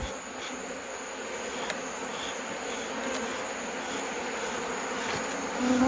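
Many African honeybees buzzing steadily around an opened hive.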